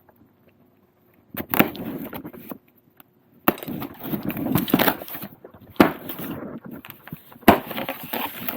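Objects being handled by hand: irregular rustling and scraping with a few sharp clicks, starting about a second and a half in after near silence.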